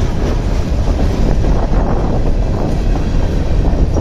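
Freight train cars rolling past close by: a steady loud rumble with the irregular clatter of steel wheels on the rails.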